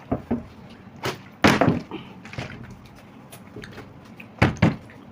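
Plastic water bottle flipped and landing hard, a few sharp knocks: the loudest about a second and a half in and again about four and a half seconds in, with lighter clicks of it being handled in between.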